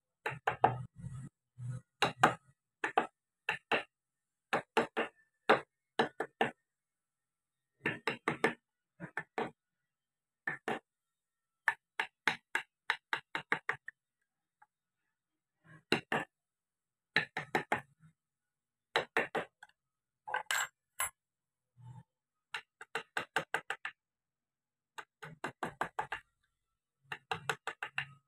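Carving chisel tapped with a mallet into wood, in short runs of quick sharp taps, several a second, with pauses between runs. It is fine detail work cutting small dents beside the lips of a carved face to shape a smile.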